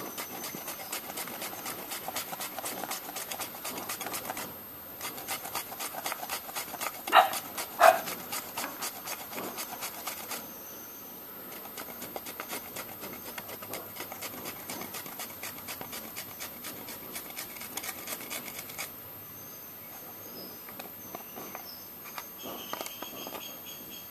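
Raw potato being rubbed quickly back and forth over a hand grater, a steady run of rasping strokes that grows fainter after about ten seconds. About seven seconds in, two short loud sounds come close together.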